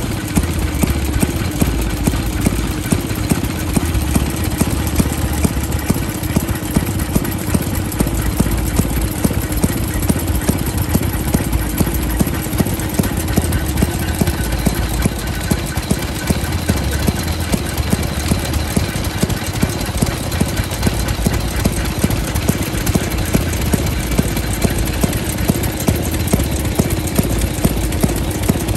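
1937 Maytag Model 92 single-cylinder two-stroke gasoline engine running at a steady speed, firing rapidly and evenly while it belt-drives a small water pump.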